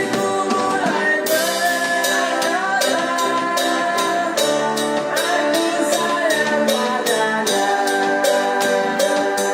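Music with a steady beat and singing.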